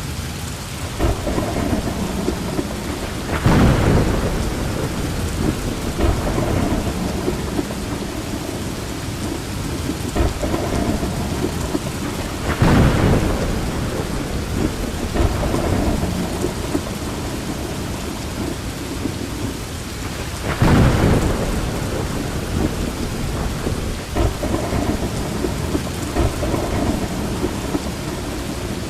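Thunderstorm: steady rain, with thunder swelling up three times, a few seconds in, near the middle and about two-thirds through.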